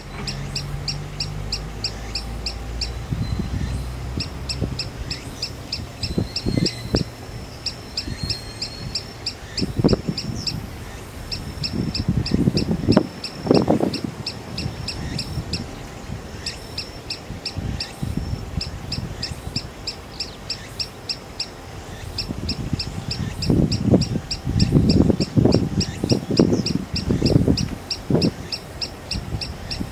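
Green sandpiper calling on and on while standing still: long runs of short, sharp, high notes in quick succession, broken by brief pauses. Irregular low rumbles come and go beneath the calls, strongest twice in the middle and second half.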